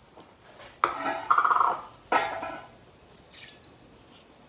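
Kitchenware being handled: a pot and a glass jar knock and clink about a second in and again about two seconds in, with a brief ring after the first, and a fainter clink a little later.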